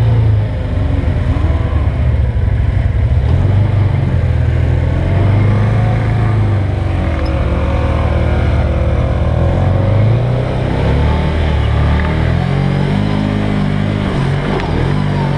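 Side-by-side UTV engine running under way on a rough dirt trail, its pitch stepping up and down as the throttle is worked, with rising and falling revs near the end.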